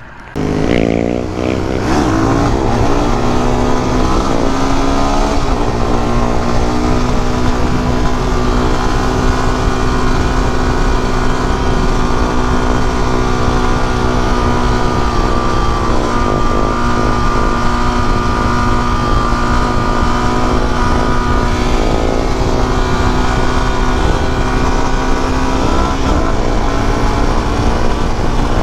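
Suzuki DR-Z400 supermoto's single-cylinder four-stroke engine pulling away under hard acceleration. Its revs climb and drop through several quick upshifts in the first six seconds, then it runs at a steady pitch with a few more gear changes later on.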